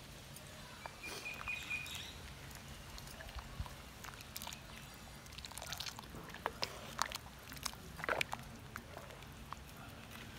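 Coconut-shell ladle stirring a curry in a clay pot: scattered soft clicks and knocks of the ladle on the pot, with a brief high chirp about a second in.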